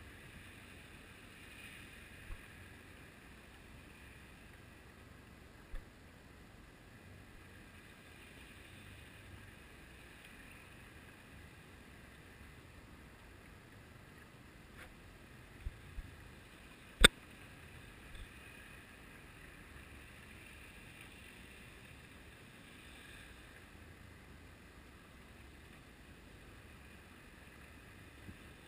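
Muffled underwater hiss heard through a GoPro's waterproof housing, broken by a few short sharp clicks or knocks, the loudest about two-thirds of the way through.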